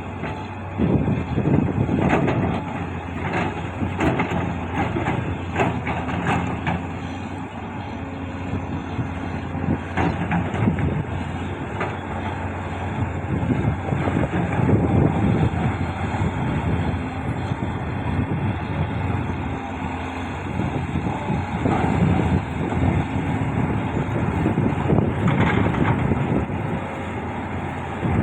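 Heavy earthmoving machine's diesel engine running steadily, with scattered metallic clanks and knocks.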